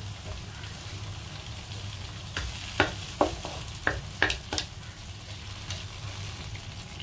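Sliced onions, chillies and garlic sizzling in a non-stick pan with tamarind water, stirred with a wooden spatula, over a steady low hum. About halfway through comes a quick run of half a dozen sharp scrapes and knocks of the spatula against the pan.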